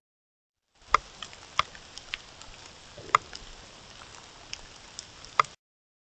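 Trail camera's own audio starting about a second in: a faint steady hiss with sharp, irregular ticks, the loudest about a second in, around three seconds and near the end. It cuts off abruptly before the end.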